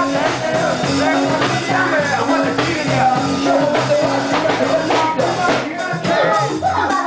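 Ska-punk band playing live, loud and dense, with a male vocalist singing into a microphone over the band.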